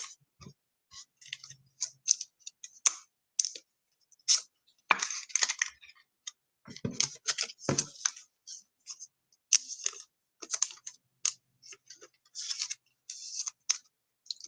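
Plastic card sleeves crinkling and clicking in irregular spurts as trading cards are slid into them, with a few soft knocks of cards on the table.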